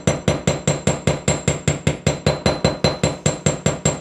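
Small jeweller's hammer striking a wire frame against a steel bench block in quick, even blows, about five a second, each with a short metallic ring.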